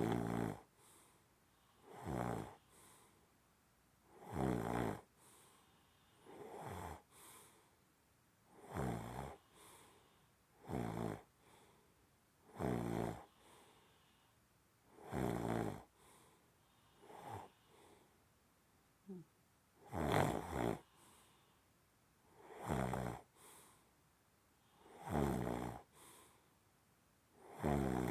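Snoring during sleep: a steady run of loud, rattling snores, one about every two to two and a half seconds, many followed by a shorter, softer breath.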